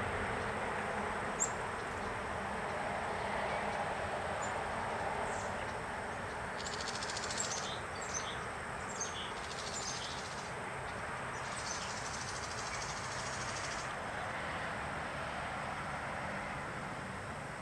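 Steady rushing outdoor background noise, with a few short high bird chirps scattered through it and a faint high buzzy trill about midway.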